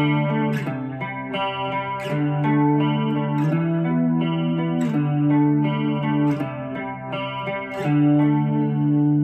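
Electric guitar, a Les Paul-style solid-body, playing picked chords that ring out and change about once a second, each new chord starting with a sharp pick attack.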